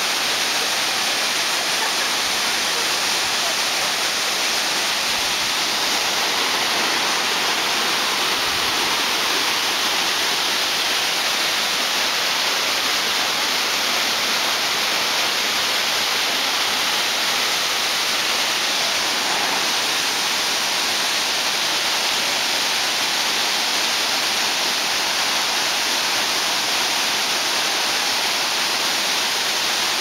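Shirahige Falls: many streams of water pouring down a cliff face and churning into the river below, a steady, unbroken rush of falling water.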